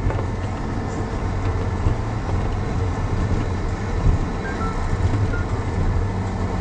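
Car running with a steady low rumble.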